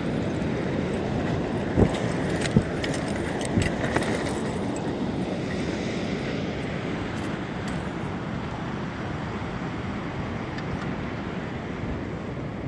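Steady rushing noise of wind and sea at the microphone, with a few sharp knocks in the first four seconds, around the lift-net winch being worked.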